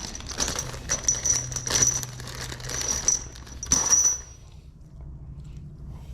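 A worn-out toolbox caster wheel being handled and turned, giving a run of rattling clicks with a thin high whine that comes and goes, from its failing bearings and crumbling rubber tread. The noise stops a little over four seconds in.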